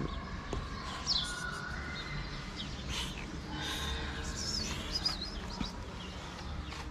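Small birds chirping now and then: short, high chirps over a steady outdoor background.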